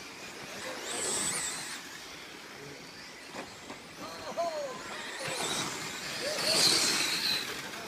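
Electric 1/10-scale RC stadium trucks racing, their motors and gears whining. The sound swells as trucks pass close, once about a second in and again near the end.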